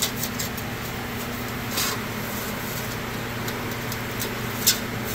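A hand rubbing and shifting a thin sheet of plasma-cut aluminium, giving a few short scraping rustles: some at the start, one about two seconds in and a sharper one near the end. Under them runs a steady low hum.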